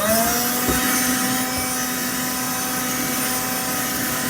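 Black+Decker APB3600 Dustbuster cordless handheld wet-and-dry vacuum switched on, its motor whine rising quickly to pitch right at the start, then running steadily with a rushing hiss of air.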